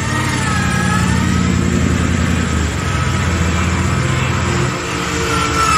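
Bushranger REVO 12,000 lb electric winch hauling in its synthetic rope under load, dragging a 76 series Land Cruiser forward in a recovery. Its motor whine glides up and down in pitch over the steady hum of the vehicle's engine running.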